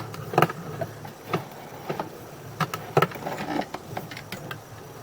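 Irregular sharp knocks and clicks over a steady low hum, from sewer inspection camera gear as the camera is worked along the pipe.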